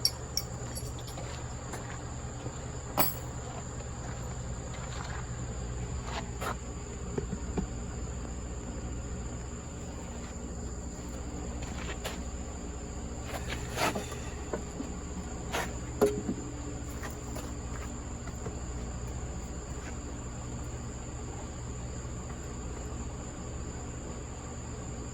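A few scattered sharp clinks and knocks of hand work on a floor buffer, over a steady high-pitched whine and a low hum.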